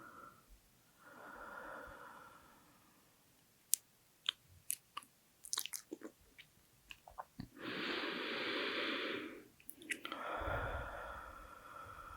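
Close-miked heavy breathing with wet mouth sounds. A soft breath comes about a second in, then a run of sharp mouth clicks and smacks, then a loud long breath about eight seconds in. Another breath near the end carries a low rumble of air hitting the microphone.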